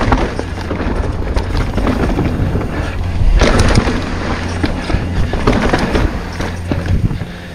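Mountain bike rolling fast down a dirt singletrack: tyre noise on dirt with the bike rattling and knocking over roots and bumps, and wind on the microphone. There is a louder rough patch about three seconds in.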